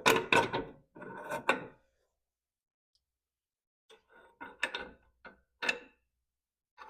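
Short metal knocks and clinks of a lower control arm and its bolts being worked into their brackets: a cluster in the first two seconds, a gap of silence, then a few more knocks.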